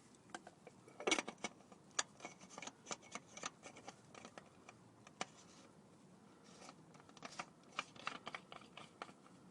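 Scattered light clicks and taps, irregular and uneven in strength, as the oil filter canister with its new cartridge is fitted and screwed back into the car's filter housing.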